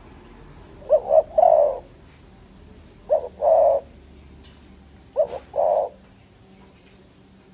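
Spotted dove cooing: three calls about two seconds apart, each a short note followed by a longer coo.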